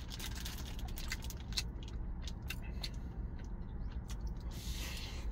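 A person chewing a mouthful of gimbap with many small mouth clicks, then biting into the roll in its wrapper near the end, over a steady low rumble.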